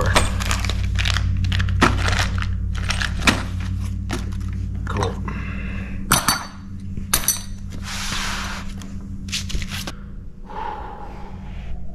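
Loose metal hardware clinking and rattling as it is handled, with a few ringing metal clinks about six to seven seconds in and plastic bags crinkling. A steady low hum runs underneath and fades out around the middle.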